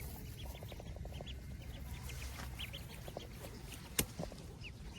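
Chickens peeping: short, high, falling calls repeated several times a second, with a single sharp click about four seconds in.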